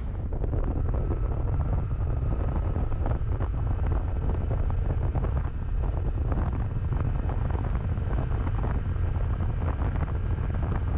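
Wind rushing over the microphone of a camera mounted on a moving motorcycle, a steady low rumble of riding noise.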